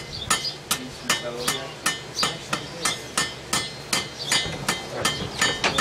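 Hand hammer striking hot iron on an anvil in a steady rhythm, about three blows a second, many blows leaving a short metallic ring.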